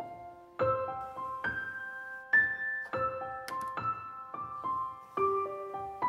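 Soft background piano music: a slow melody of single notes, each struck and left to ring.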